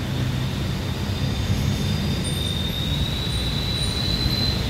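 Street traffic from jeepneys and trucks: a steady low engine rumble, with a thin high whine above it that rises slightly in pitch toward the end.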